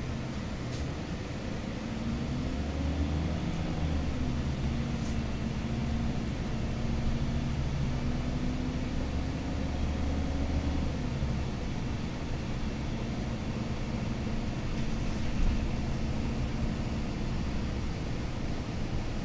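Cummins ISL diesel engine of a 2008 Gillig Phantom transit bus, heard from inside the cabin as the bus accelerates. The engine note climbs and then drops back twice, about three seconds in and again near eleven seconds, as the Allison automatic transmission upshifts.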